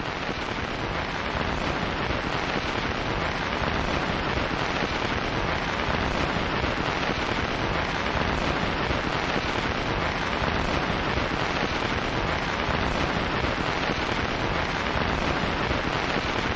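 Steady, even rain sound, a dense hiss with no pitch or rhythm, swelling slightly over the first couple of seconds.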